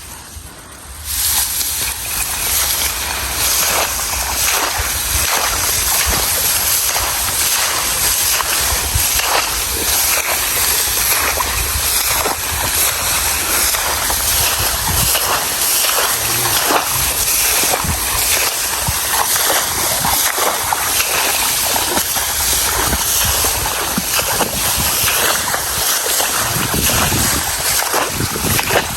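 Water sloshing and splashing: a steady rushing noise with many small irregular splashes, starting about a second in.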